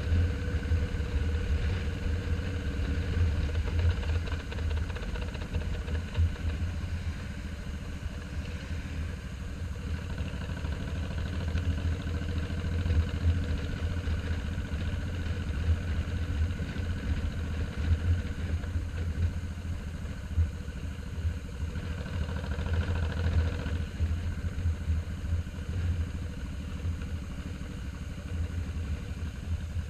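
Cruiser motorcycle engine running steadily at easy road speed, heard from the rider's seat as a continuous low rumble that swells briefly a little past two-thirds of the way through.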